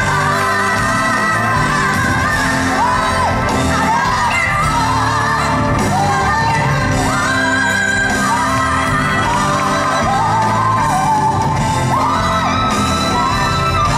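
A woman belting long, high held notes with vibrato into a handheld microphone over loud pop accompaniment, live in a large hall.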